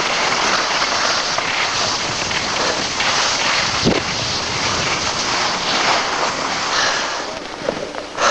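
Steady rushing wind noise on a camcorder microphone carried by a skier going downhill, mixed with the hiss of skis sliding over snow, and a single knock about halfway through.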